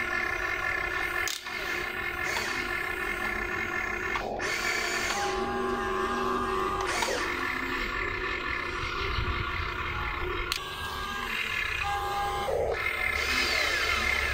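Whine of a radio-controlled Huina excavator's electric motors and gearboxes as it digs and swings. Several held tones shift slightly in pitch as the arm moves, with short breaks in the sound.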